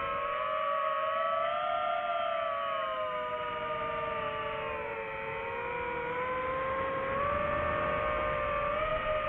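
FPV quadcopter's brushless motors whining, several tones drifting up and down together as the throttle changes.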